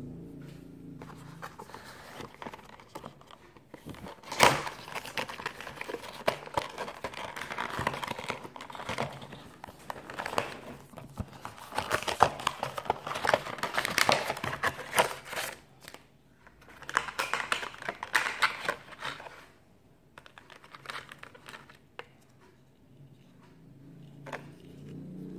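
Cardboard box and clear plastic blister packaging being opened and handled: irregular bursts of crinkling and rustling with sharp clicks, dying down near the end.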